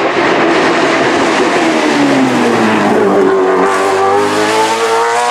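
Mercedes SLK340 hillclimb car's naturally aspirated Judd V8 racing engine, loud. The revs fall as it slows into a hairpin, then climb steadily from about halfway as it accelerates out of the corner.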